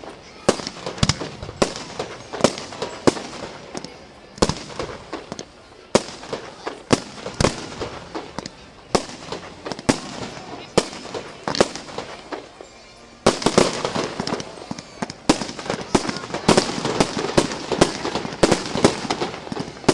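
Fireworks display: aerial shells bursting in a rapid, irregular run of bangs and crackles. About two-thirds of the way through it gets denser and louder.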